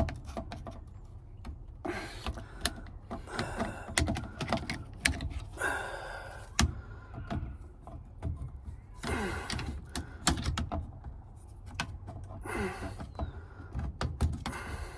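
Screwdriver prying a steering-column lock ring up its shaft: irregular small metal clicks and short scrapes.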